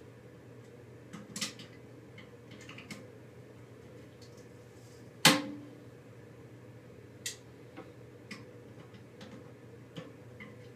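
Scattered small clicks and knocks of hands working on toilet plumbing parts, with one sharp, much louder knock and a brief ring about five seconds in, over a steady low hum.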